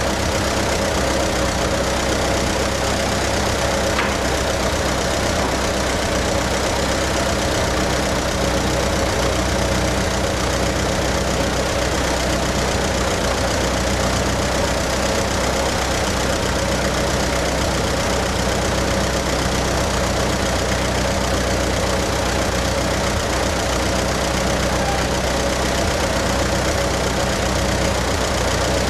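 Ferguson TE-A20 tractor's four-cylinder petrol engine running steadily at an even speed.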